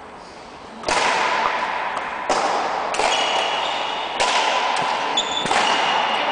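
Badminton rally: rackets strike the shuttlecock five times, roughly a second apart, each hit echoing in the hall, with short squeaks of court shoes on the floor between them.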